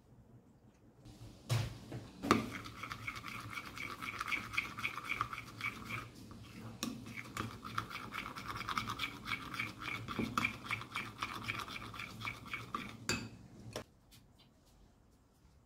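Glue and toothpaste being stirred quickly in a glass bowl: rapid back-and-forth scraping strokes, about six a second, with a short pause partway through. The stirring stops near the end with a couple of knocks against the bowl.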